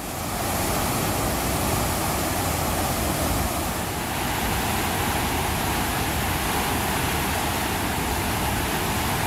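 Water rushing steadily out through the open sluice gates of Veeranam lake's main outlet sluice, turbulent white water churning below the gates as surplus floodwater is released at about 1,000 cubic feet per second.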